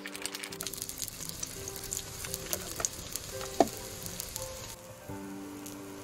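Food sizzling and crackling on a hot pan, with background music playing; one sharp pop about three and a half seconds in.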